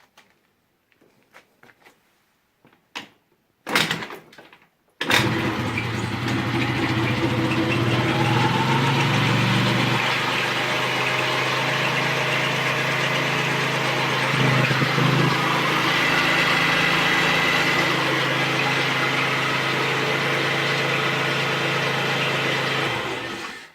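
Rex RS 400 scooter engine started: a short burst about four seconds in, then it catches about a second later and runs steadily at idle with a squeak, the unexplained noise the owner is asking about. It cuts off near the end.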